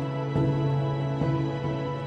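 Background music: soft, slow instrumental with held notes.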